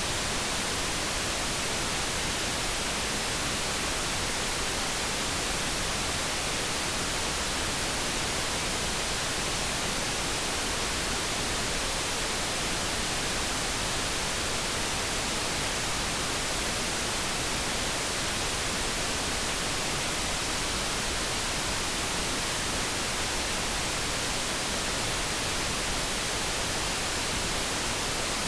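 Steady generated noise for focus: an even, unchanging hiss with no tones, clicks or changes.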